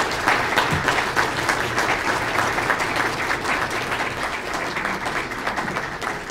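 Audience applauding: a dense, steady patter of many hands clapping that eases off toward the end.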